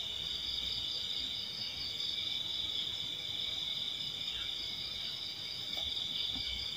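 Insect chorus: a steady, high-pitched chirring that does not let up.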